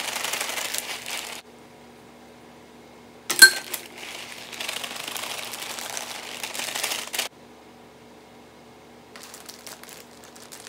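Plastic bag of shredded mozzarella rustling as it is shaken over a lasagna in a glass baking dish, in two spells, with one sharp ringing clink between them, the loudest sound. Near the end a plastic zip-top bag crinkles.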